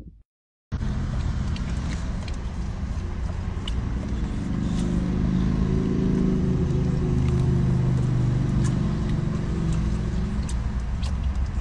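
Steady low rumble of a car running, heard from inside the cabin, starting just under a second in. A few faint small clicks sound over it.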